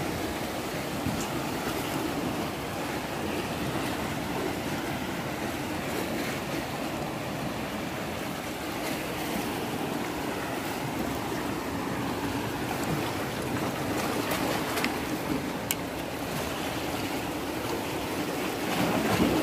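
Sea waves washing against the rocks of the shore, a steady rush of surf with a few faint clicks.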